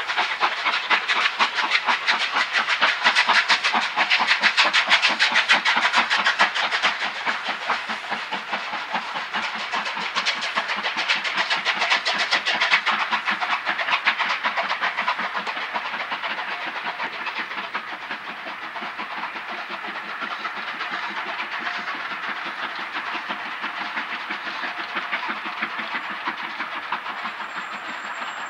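Steam locomotive exhaust beating hard as the train works along the line: a rapid, even run of chuffs. It is loudest through the first dozen seconds and eases off a little after.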